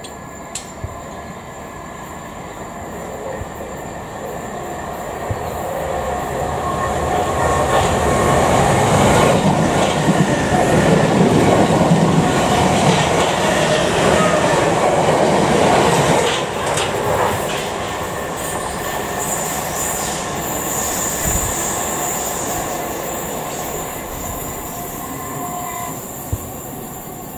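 South Western Railway electric multiple unit passing by, its wheels and running gear building to a peak about a third of the way in, holding for several seconds and then fading away as it recedes.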